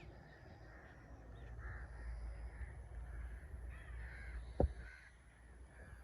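Birds cawing several times with harsh, crow-like calls, over a steady low rumble, with one sharp knock about four and a half seconds in.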